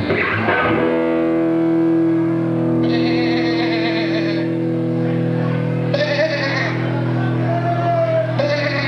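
Live band music led by an electric guitar, holding long sustained chords and notes, with a wavering higher note in the second half.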